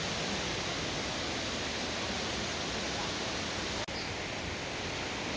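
A steady, even rushing hiss of outdoor noise, broken by a momentary dropout about four seconds in.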